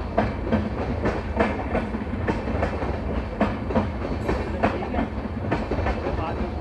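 An Indian Railways express train with LHB passenger coaches rolling past as it departs, with a steady low rumble and wheels clicking over the rail joints about twice a second.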